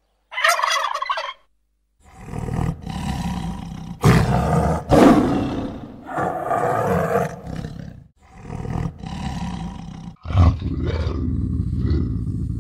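Animal calls: a short, high call about half a second in, then from about two seconds a string of loud, deep calls in several short clips joined with abrupt cuts.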